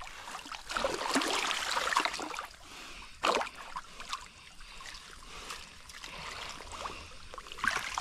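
Water splashing and trickling as someone moves through shallow channel water, with one sharper splash about three seconds in.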